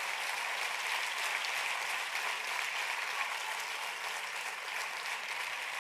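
Theatre audience applauding steadily, many hands clapping together, easing off slightly near the end.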